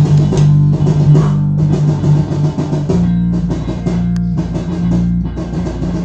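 Rock music: electric guitar and bass holding low chords under drum hits, with a bending lead guitar line breaking off at the start.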